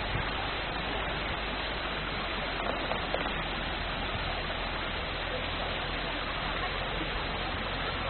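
Shallow stream running over rocks: a steady, even rush of water.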